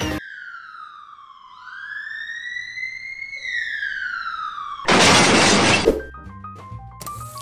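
Cartoon ambulance siren sound effect wailing in one slow sweep: its pitch falls, rises, then falls again. About five seconds in comes a loud, crash-like burst of noise lasting about a second, the loudest sound here, and light music starts near the end.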